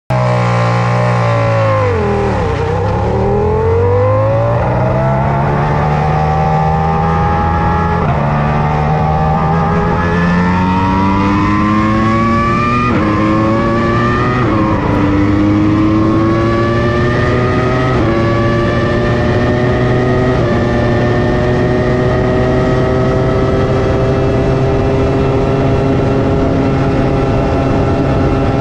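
2001 Jaguar Formula 1 car's Cosworth V10 engine, heard from onboard, accelerating hard. The revs dip as the car gets away, then climb again and again, each climb broken by a sudden drop in pitch at an upshift, about five gear changes in all. In the last few seconds the engine holds a high, slowly rising note.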